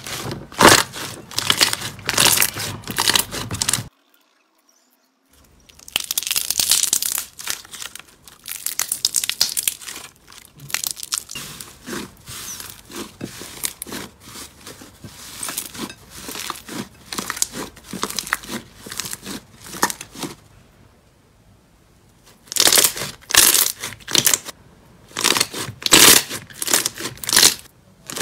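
Hands squeezing, kneading and pressing slime, giving runs of quick wet clicks and pops as air pockets burst. There is a brief break in the sound about four seconds in and a quieter stretch a little past twenty seconds.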